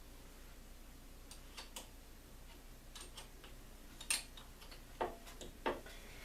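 Scattered light metallic clicks and taps, a few seconds apart at uneven spacing, from the Aussie Locker's center pin bolt being fitted into the Dana 35 differential carrier. The sharpest click comes about four seconds in.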